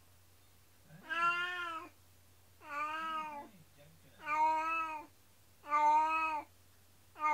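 Cat meowing over and over in long, drawn-out plaintive cries, about one every second and a half, with soft low chirps between them. The owners take it for distress at its companion cat having been taken away for surgery.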